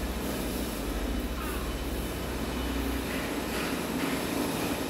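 Garden hose spraying a jet of water onto wet paving tiles: a steady rushing hiss over a low rumble that eases about three seconds in.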